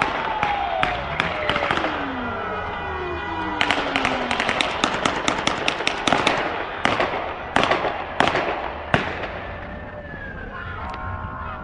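Gunshots fired in rapid volleys of sharp bangs, thickest from about three and a half to six and a half seconds in, then single shots spaced roughly a second apart until about nine seconds in.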